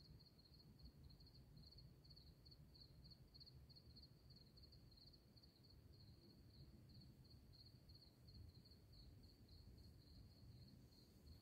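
Faint insect chirping: a high trill pulsing evenly several times a second, over a low background rumble.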